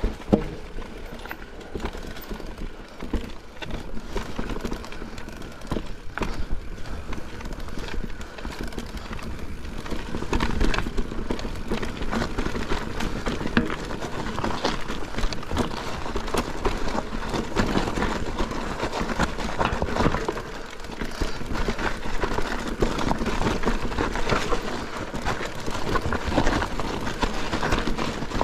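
Mountain bike descending a rough trail: a steady rush of tyre noise with a constant clatter of knocks and rattles from the bumps.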